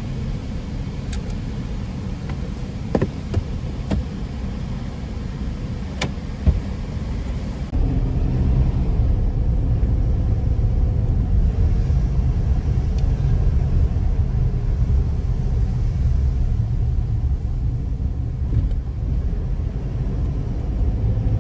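Car driving on a rough mountain road, heard from inside the cabin: a steady low road rumble with a few sharp knocks in the first several seconds. The rumble gets louder about eight seconds in and stays that way.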